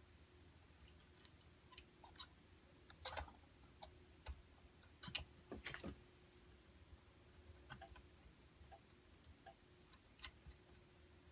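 Near silence broken by faint, scattered clicks and taps of a soldering iron tip and a small metal tool against a CB radio's circuit board as the old final transistor's legs are heated and lifted. The sharpest click comes about 3 s in and a quick run of them between about 5 and 6 s, over a faint steady hum.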